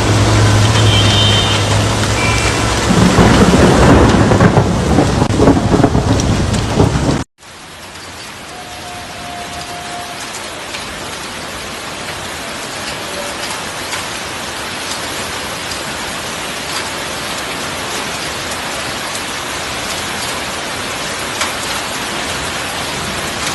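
Heavy rain. For the first seven seconds it is loud, with a low steady hum under it. After a sudden cut it gives way to an even, steady sound of rain falling.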